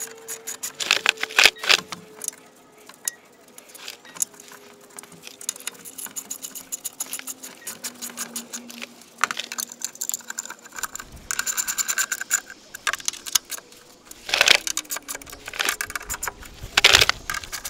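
Rapid metallic clicking and rattling of a hand tool driving in the screws of a plastic underbody panel (lower engine cover), hand tight, with louder bursts of clicks about a second in, again towards the end and just before it.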